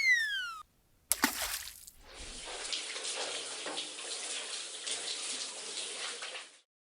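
Shower water running steadily for about four and a half seconds, starting about two seconds in, as a sound effect for a toy figure taking a shower. Before it come the tail of a falling cartoon boing and a brief swish.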